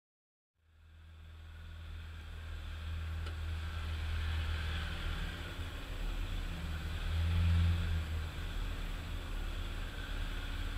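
Nissan Patrol GU four-wheel drive driving along a wet sandy track: a steady low engine drone with tyre and road noise, fading in from silence about half a second in and swelling briefly around seven seconds in.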